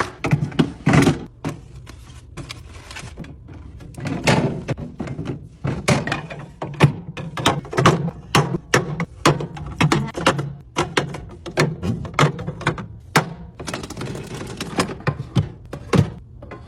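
Items being set down and arranged one after another while restocking, an irregular run of clunks, knocks and taps.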